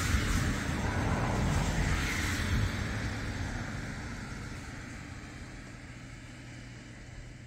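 A vehicle passing and receding, a rumble and hiss loudest at the start that fades away over several seconds, leaving a faint low hum.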